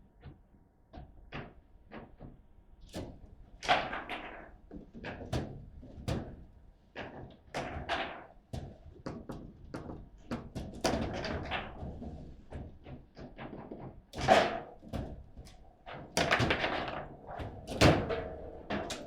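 Table football rally: the ball is struck and blocked by the rod-mounted players, giving a quick, irregular run of knocks and clacks, with a few sharper, louder hits.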